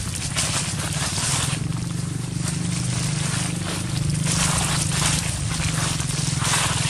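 Footsteps crunching and rustling through dry fallen leaves in an uneven rhythm, over a steady low rumble.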